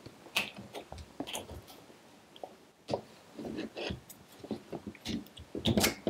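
Needle-nose pliers clicking and scraping against the brass inlet fitting of a washing machine's Aquastop hose while the rubber seal and the filter screen are pulled out. The sounds are scattered small clicks and scrapes.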